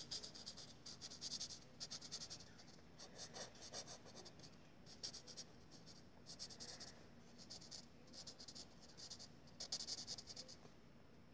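Felt-tip marker scratching rapidly back and forth on paper, colouring in small patches. The sound is faint and comes in about ten short bursts of quick strokes with brief pauses between.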